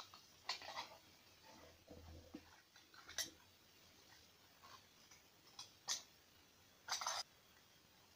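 Large scissors snipping through thin card: a few short, separate cuts a second or more apart.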